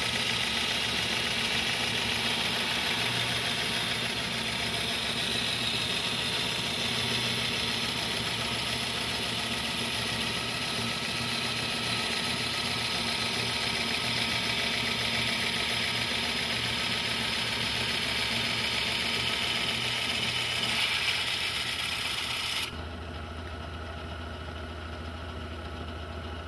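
Diamond Laser 3000XL glass bandsaw running, its diamond blade grinding through glass with a steady high hiss over the motor's hum. About 23 seconds in, the grinding hiss stops abruptly, leaving a lower, quieter hum.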